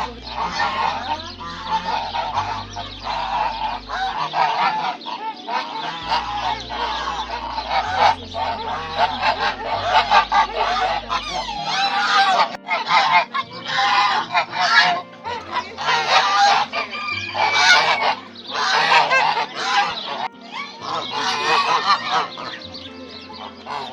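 Geese honking over and over, many loud calls overlapping, with music carrying low bass notes underneath.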